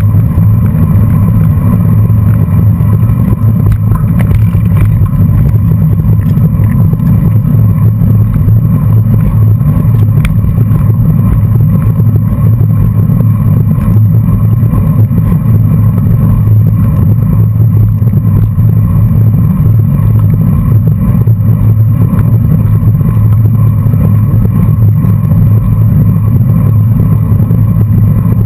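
Steady low rumble of wind buffeting the microphone of a camera on a racing bicycle riding in a pack, mixed with tyre noise on a dirt road. A few faint clicks come through.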